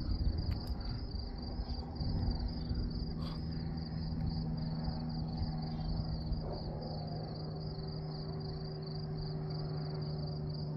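Crickets chirping in a rapid, even pulse, over a steady low hum.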